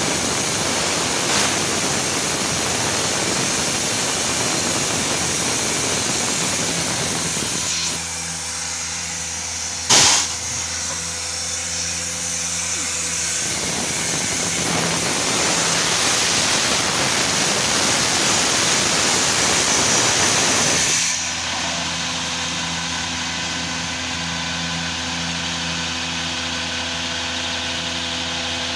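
Vacuum sludge truck's engine and pump running steadily under a loud hiss of air. A sharp bang comes about ten seconds in, and about two-thirds of the way through the hiss cuts off suddenly, leaving the engine and pump running on at a lower level.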